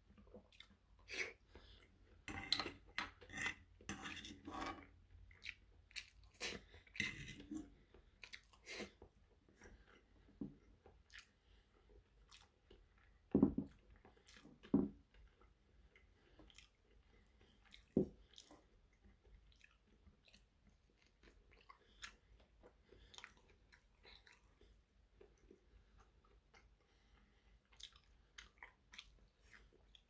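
Close-up chewing and biting of steak, busiest over the first nine seconds or so. Then come a few louder knocks and scattered clicks and scrapes of a metal fork against a frying pan.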